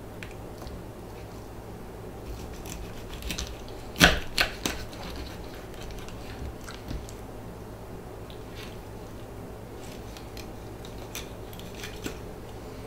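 Curved fillet knife cutting a coho salmon into steaks, crunching through the backbone in short, scattered crunches and sharp clicks, with the loudest cluster of three about four seconds in.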